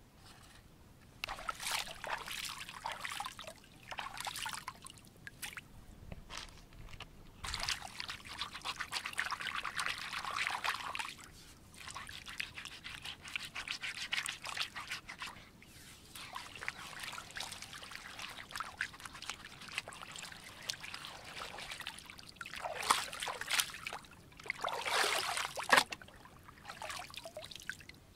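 Hands splashing and swishing in shallow river water while rinsing leafy greens and scrubbing a wooden chopping board, the water trickling and sloshing in irregular bursts with short lulls between.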